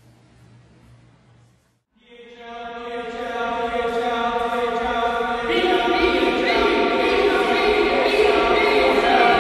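Voices speaking short syllables (initials), drawn out by the very long echo of a large empty former cold-storage building into sustained, overlapping tones like a chant. They start suddenly about two seconds in after a faint hum, and build steadily louder as more voices join about halfway through.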